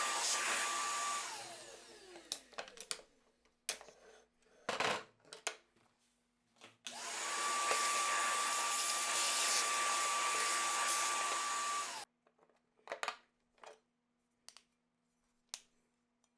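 An electric power tool with a high motor whine running, then spinning down with falling pitch. A few knocks and clicks follow, then it runs again for about five seconds and stops abruptly, followed by a few more knocks.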